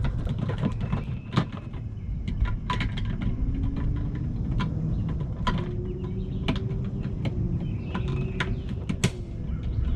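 Light clicks and taps of small parts being handled and fitted, scattered through a steady low rumble, with a faint hum slowly rising in pitch from about two seconds in.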